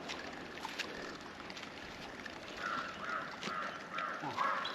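A bird calling: a quick run of short calls, about three a second, starting about halfway through, over faint outdoor hiss with a few scattered clicks.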